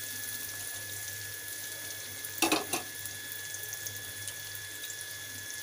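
Chopped onions and green chillies sizzling in hot oil in a metal kadai: a steady hiss with scattered crackles. A brief louder sound comes about two and a half seconds in.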